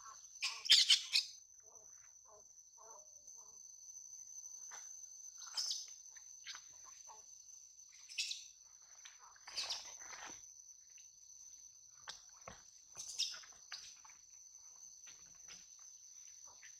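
Steady high drone of insects, with short high chirping calls breaking in every few seconds; the loudest cluster of calls comes about a second in.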